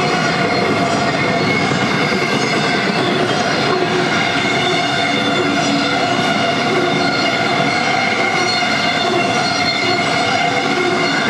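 Empty intermodal spine cars of a freight train rolling past: a steady rumble and rattle of steel wheels on rail, with several high, steady squealing tones from the wheels over it.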